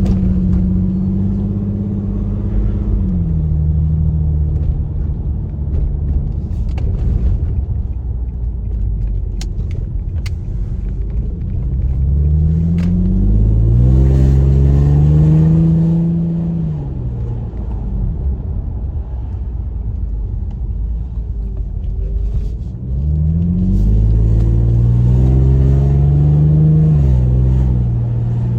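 Infiniti's VQ35HR V6 running through a freshly fitted Manzo stainless catback exhaust while driving. The engine note drops about 3 seconds in, then rises under acceleration twice, around the middle and again near the end, falling away after each pull.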